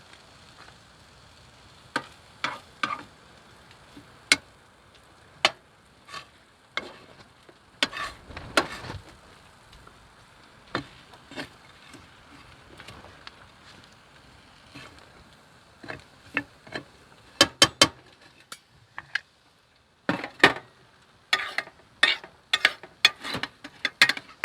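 A metal utensil stirring, scraping and clinking in a frying pan, giving irregular sharp clicks in clusters, over a faint sizzle of food frying.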